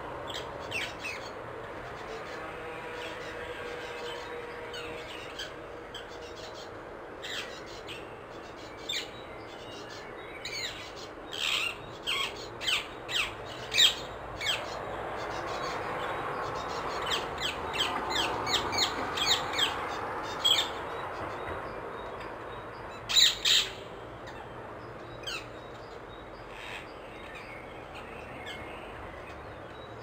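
Rose-ringed parakeet calling: short, high, sharp calls repeated at intervals, coming quickly in a run of about a dozen in the middle, with the loudest pair near the end. A steady background noise swells and fades under the calls in the middle.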